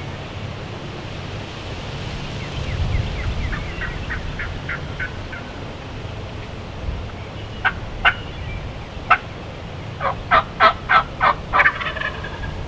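Wild turkey calling: a quick run of short notes a few seconds in, a few sharp single notes, then a loud series of about seven rapid notes near the end.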